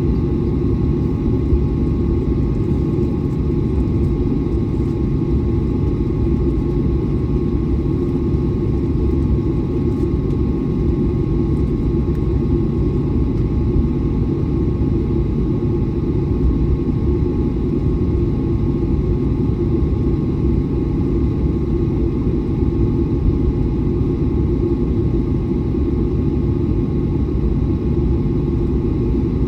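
Airliner taxiing: a steady low rumble with a faint, steady whine above it, unchanging throughout, with the jet engines at taxi power.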